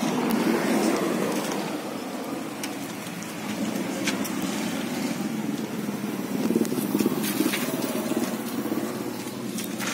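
Car engine idling: a steady, low, rough rumble, with a few light clicks over it.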